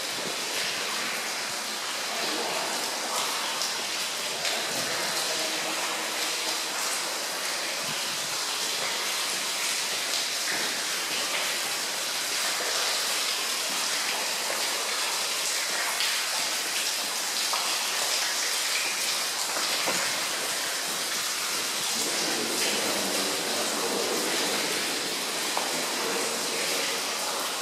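Water falling and dripping inside a rock tunnel, making a steady, even rain-like hiss.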